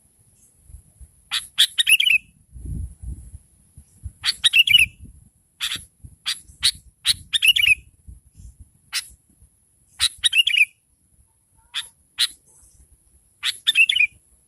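Sooty-headed bulbul calling: sharp single chips and short bubbly phrases that end in a falling warble, repeated every second or two.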